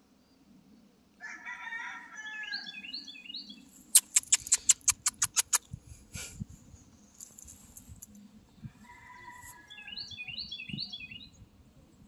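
A rooster crows twice, about a second in and again near the end, each crow with quick bird chirps on top. Between the crows comes a fast run of about ten sharp clicks, the loudest sound.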